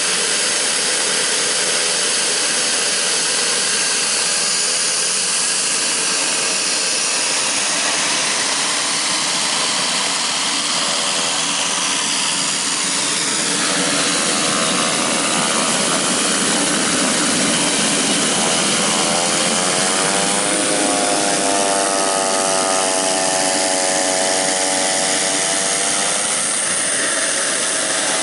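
Pilatus PC-12/47E's single Pratt & Whitney PT6A-67P turboprop engine and propeller running loud and steady. About halfway through, a whine of several stacked tones comes in; it bends in pitch and then holds steady.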